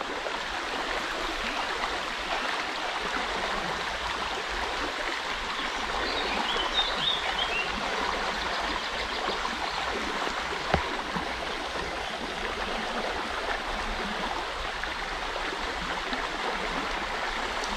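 River water rushing steadily over a shallow run. A brief high chirp comes about seven seconds in, and a single sharp click about eleven seconds in.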